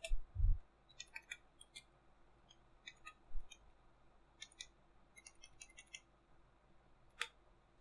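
Computer keyboard typing in short bursts of key clicks, with a single louder click near the end. Two low thumps, about half a second and three and a half seconds in.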